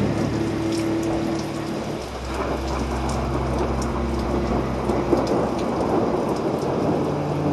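Steady rain falling, with distant thunder rumbling low underneath that swells about two seconds in.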